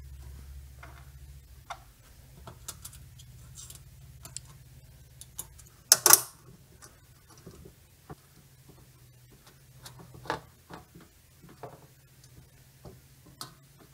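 Small metallic clicks and taps of binder screws and nuts being hand-threaded and finger-tightened on a steel generator interlock plate resting on a sheet-metal panel cover, with one louder clack about six seconds in, over a faint low hum.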